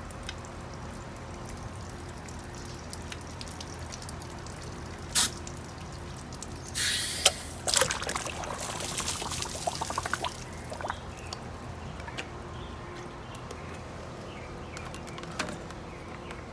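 Water pouring and trickling out of opened PVC pool-return plumbing as the pressure-test rig is pulled out and the line drains. It is heaviest and splashiest from about seven to ten seconds in, over a steady low hum.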